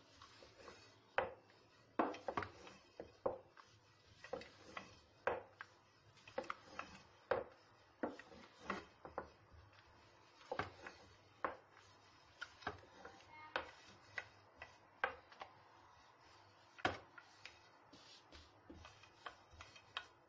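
Thin wooden rolling pin (oklava) knocking, rubbing and rolling on a floured glass tray as lavash dough is rolled out: irregular sharp knocks, one or two a second, with some louder than others.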